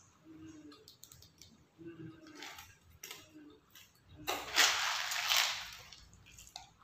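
Close-up eating sounds: chewing with a few short, low hums. About four seconds in there is a loud rasping rush of just over a second as a clear plastic snack jar is moved across the glass tabletop.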